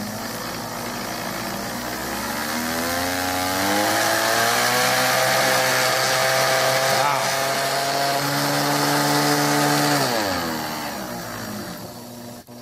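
Electric mixer motor spinning a pump used as a generator, its whine rising in pitch and getting louder as the speed control is turned up about two seconds in, holding at speed, then falling away near the end as it is turned back down.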